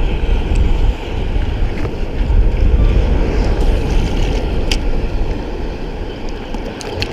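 Wind buffeting the microphone over the wash of rough surf: a steady, loud rumble that swells and eases, with a couple of sharp ticks.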